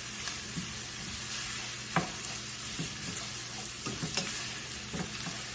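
Chopped vegetables sizzling steadily in hot oil in a pan as they are stirred, with scattered light knocks of the utensil against the pan, the sharpest about two seconds in.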